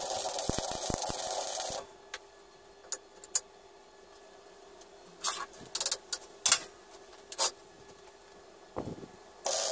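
MIG welding arc crackling steadily for about two seconds, then cutting off. After that, scattered sharp metallic clicks and knocks as the steel workpiece and a magnetic welding square are handled on the steel table, with a dull thump, before the arc strikes again and crackles steadily just before the end.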